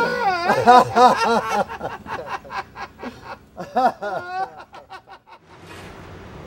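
A man laughing in rapid, wavering, high-pitched bursts, trailing off about two seconds in, with another short burst around four seconds in. A steady faint hiss takes over near the end.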